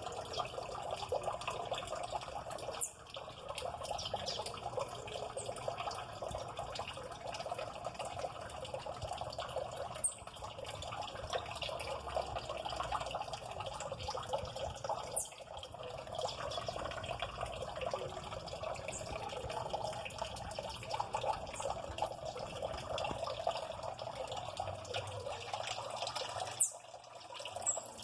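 Water running and trickling steadily, with a few brief high chirps scattered through it.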